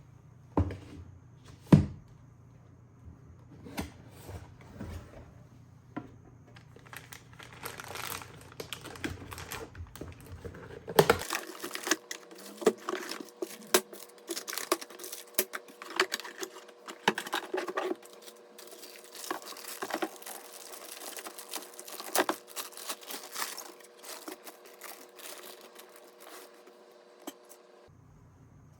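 Hands handling packaging and computer parts: irregular crinkling, tearing and clicking, with two sharp knocks near the start.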